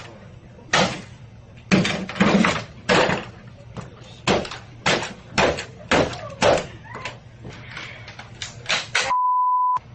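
A rapid series of loud crashes, bangs and thuds, about one every half second to second, as a computer and other office equipment are smashed and thrown around. Near the end a steady one-tone bleep blanks out the sound for under a second.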